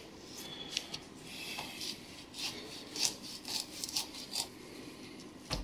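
Kitchen knife cutting through a bonito's skin and flesh behind the fin, a faint series of short, irregular strokes.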